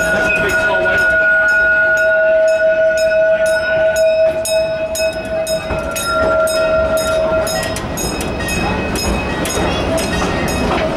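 A park passenger train rolling along, heard from an open car: its wheels click irregularly over the rail joints over a steady rumble. A steady high tone is held through the first two-thirds, breaking off briefly in the middle and stopping near the end.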